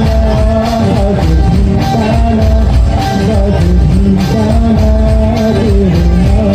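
A song with a sung melody over a steady drum beat and heavy bass.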